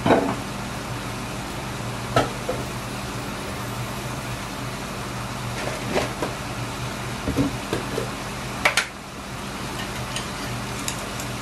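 Chicken and onion frying in a stainless-steel pan: a steady sizzling hiss with a few brief pops, over a low steady hum.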